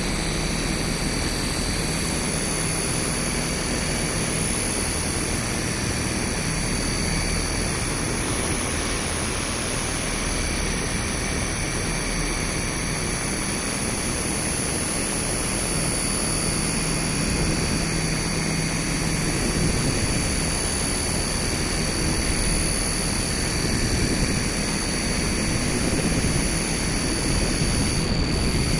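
Electronic noise drone from a live laptop sound-art performance: a dense, steady rushing noise with a thin high whistle over it, growing a little louder in the second half.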